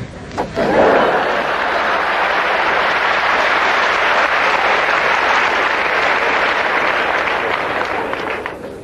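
Theatre audience applauding: a full round of clapping that breaks out about a second in, holds steady, and dies away near the end.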